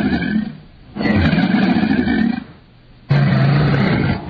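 Crocodile growling in long, deep calls. One call ends just after the start, a second lasts about a second and a half from about a second in, and a third begins about three seconds in.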